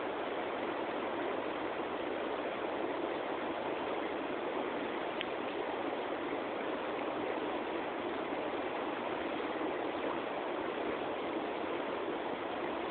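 River water rushing: a steady, even hiss with no breaks.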